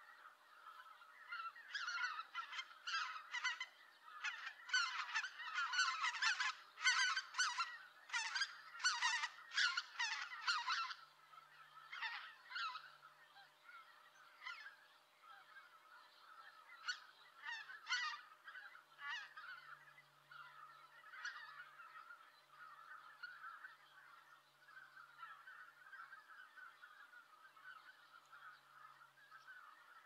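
A flock of greater white-fronted geese calling, many honking calls overlapping densely for the first ten seconds or so, then scattered calls over a steady chorus of more distant geese.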